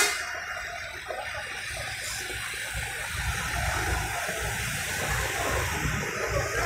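Road vehicles on a wet road: a steady hiss of tyres and traffic, with a low engine rumble swelling from about three seconds in as a minibus drives past the stopped heavy truck. The tail of a horn blast cuts off at the very start.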